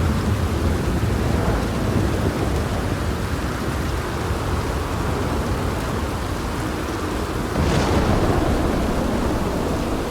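Steady rain with a low rumble of thunder in the first seconds, and a sudden louder clap of thunder about three-quarters of the way in that then slowly fades.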